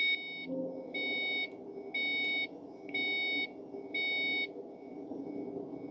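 A 2005–2006 Ford Mustang's dashboard warning chime beeping five times, about once a second, as the ignition is switched on, then stopping.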